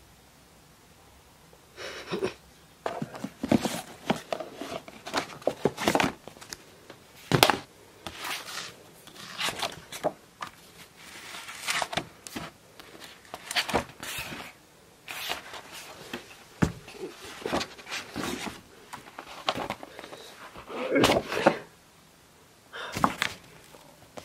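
A sheet of paper and art supplies being handled on a desk: irregular rustles, taps and bumps, with brief pauses.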